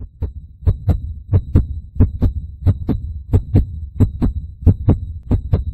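Heartbeat sound effect: a steady double thump, lub-dub, repeating about three times every two seconds over a low hum, with a faint high steady tone behind it.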